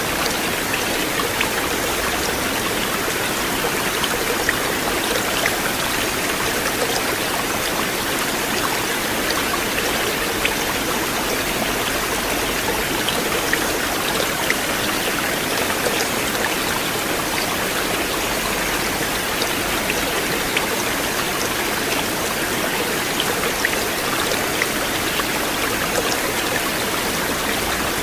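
River water flowing: a steady, even rush with scattered small splashes.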